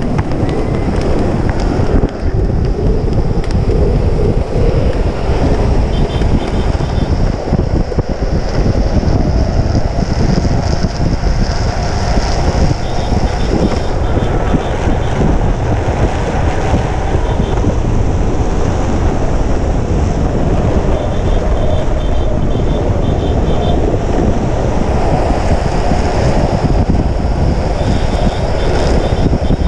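Loud, steady wind rush on the microphone over the rolling noise of longboard wheels on a concrete road during a fast downhill run.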